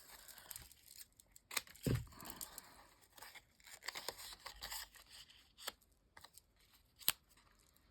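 Paper being handled while crafting: rustling and scraping, with a dull thump about two seconds in and a sharp tap about seven seconds in.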